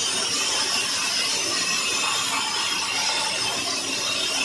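Band saw running and cutting through a thick wooden block: a steady, high-pitched rasp that holds an even level without a break.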